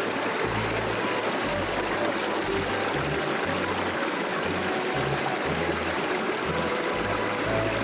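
River water rushing steadily, with the slow low notes of a background music bass line underneath.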